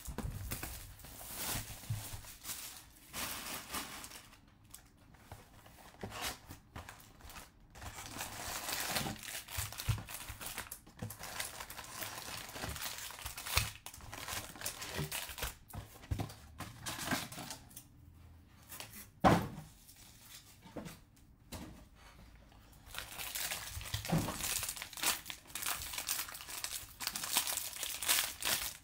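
Plastic shrink wrap being torn off a sealed box of trading cards and crinkled in the hands, with the card packs then handled. One sharp knock about two-thirds of the way through is the loudest sound.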